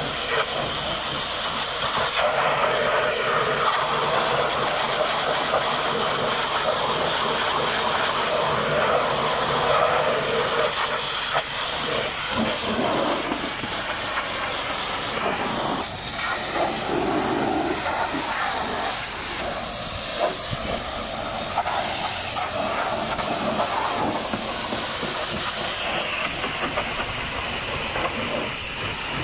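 High-pressure washer jet spraying, a steady hiss of water blasting against the truck's tyres and wheels and then against the steel side of the tipper body.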